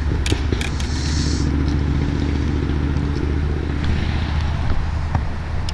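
Steady low hum of a boat's electric trolling motor running, with a few short clicks and rattles as the hooked fish and lure are handled.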